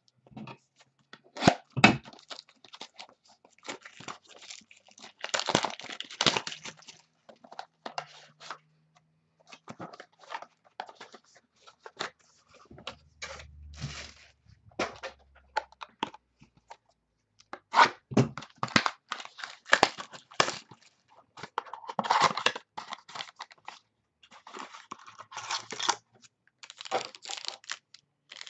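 Plastic shrink wrap being torn off a sealed box of trading cards and crumpled by hand, in irregular crinkling and tearing bursts with short pauses between them.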